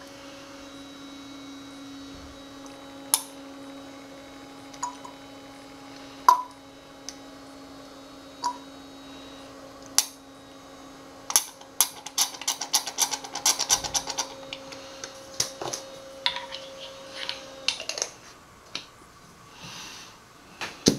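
Bottles, containers and utensils being handled while oils are mixed: scattered clinks and taps, then a quick run of rapid clicking and clinking about eleven seconds in. A steady low hum sits underneath and stops near the end.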